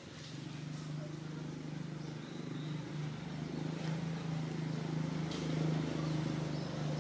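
Engine of a motor vehicle running with a steady low hum that grows gradually louder, with a few faint high chirps above it.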